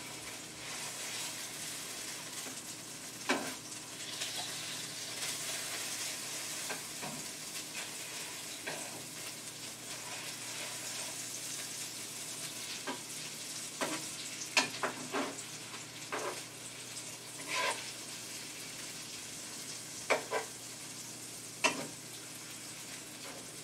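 Chicken breasts and bacon sizzling steadily in a hot frying pan with their juices, with scattered sharp clicks of metal tongs against the pan as the pieces are moved.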